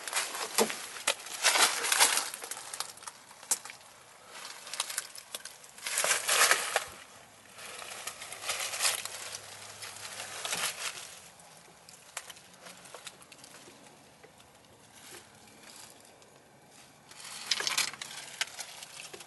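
Crunching and rustling of dry leaves and debris underfoot, in a few louder bursts with quieter stretches and scattered small crackles between.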